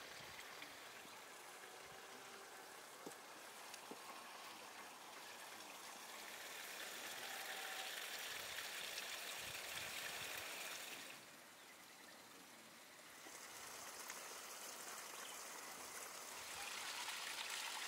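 Steady rush of a running stream, with a quieter stretch of about two seconds past the middle.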